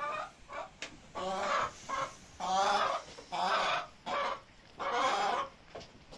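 Chickens calling loudly: four or five drawn-out squawks about a second apart, with short clucks between them.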